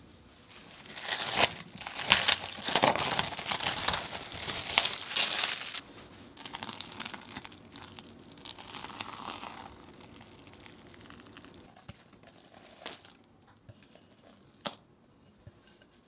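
Plastic cling film crinkling as it is peeled off a glass bowl, loudest for about five seconds, followed by softer sounds of a silicone spatula stirring the bubbly fermented poolish, with a couple of light clicks near the end.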